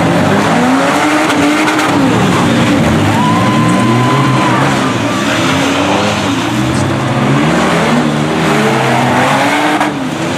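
Several demolition derby minivan engines running at once, revving up and down and overlapping as the vans drive and spin their wheels in mud. A high, thin squeal sounds for about two seconds, starting about three seconds in.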